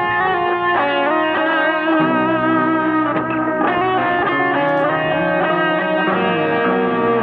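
Guitar music: layered, sustained notes played through effects, the chords and melody shifting every half second or so.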